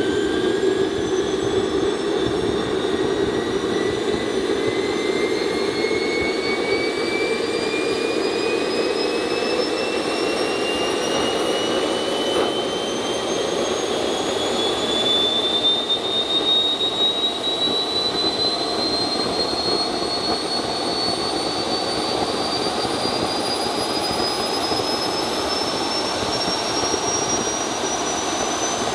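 Small RC turbine jet engine running on Jet A kerosene over a steady rush of exhaust noise. Its whine rises slowly and evenly in pitch throughout as it spools up toward its 98,000 rpm target while the ECU adapts to the new fuel.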